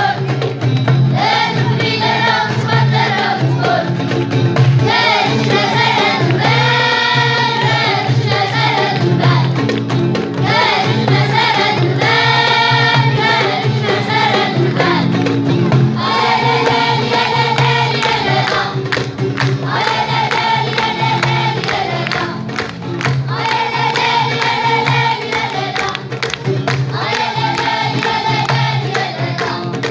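A school vocal ensemble singing an Amazigh song together in phrases, over a steady low accompanying tone.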